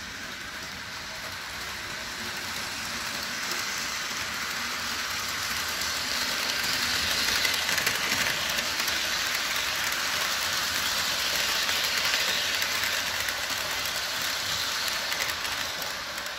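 Model freight train's wheels rolling along the track, a steady rushing noise that swells as the cars pass close by and eases off near the end.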